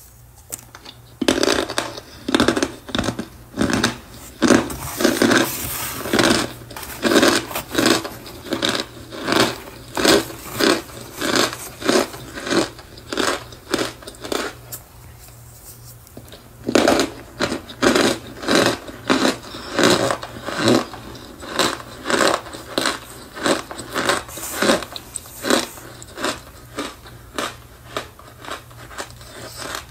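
Blocks of cornstarch being squeezed and pressed by fingers, giving a steady run of squeaky, powdery crunches at about two a second. They pause for a moment near the middle, then start again.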